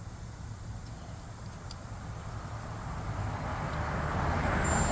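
A motor vehicle approaching, its engine hum and road noise growing steadily louder through the second half.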